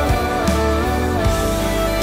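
Background music: sustained instrumental chords with a sliding melody line over a steady beat.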